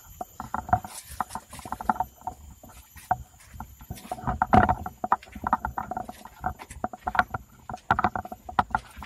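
Irregular footsteps scuffing and crunching over dry leaf litter and debris on a concrete tunnel floor.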